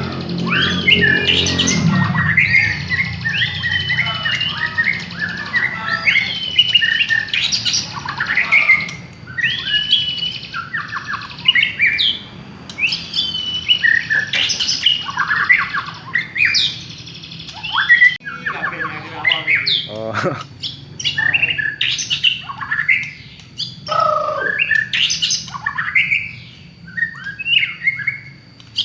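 White-rumped shama (murai batu) singing a long, varied song: quick rich whistles sliding up and down, mixed with harsh scratchy chattering notes, in phrases separated by short pauses. A low droning tone lies under the song for the first two seconds.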